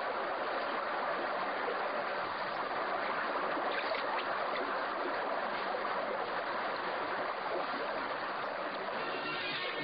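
Steady rushing of running water, like a stream, at an even level. Music comes in near the end.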